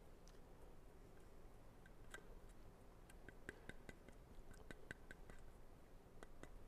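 Near silence with a scattered run of faint clicks and light taps from about two seconds in, as altar vessels and the host are handled on the altar during the priest's communion.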